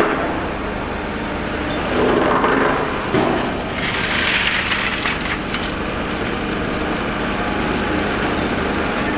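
Heavy diesel engine running with a steady low hum, with a few knocks about two to three seconds in and a short hiss about four seconds in.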